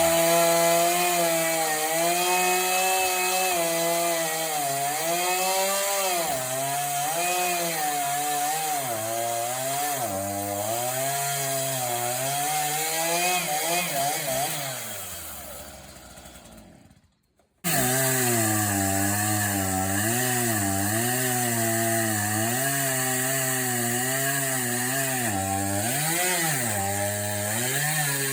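Chainsaw cutting into a thick tree trunk, its engine pitch dipping and rising repeatedly as the chain bogs under load and picks up again. About fifteen seconds in it winds down and falls silent for about a second, then comes back suddenly at full cutting speed.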